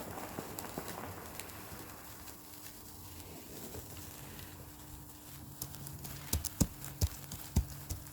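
Irregular sharp clicks and crackles, dense at first, then a few louder, sharper cracks near the end.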